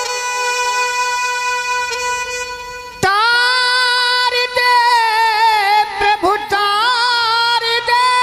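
Held, reedy instrument chords, then about three seconds in a man's voice comes in loud through the microphone, singing a long, wavering, ornamented opening note of a Hindi devotional bhajan over the accompaniment.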